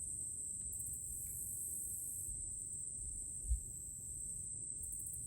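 Insect chorus in a summer swamp forest: a steady, high-pitched, pulsing drone. A soft low thump comes about three and a half seconds in.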